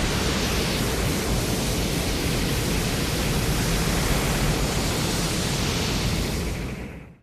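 A film sound effect: a loud, steady rushing roar of noise with no clear pitch, which fades and stops about seven seconds in.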